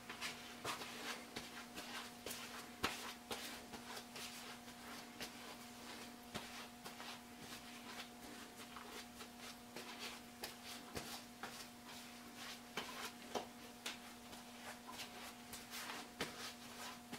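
Irregular light clicks, taps and rustling as things are handled at a workbench, over a faint steady hum.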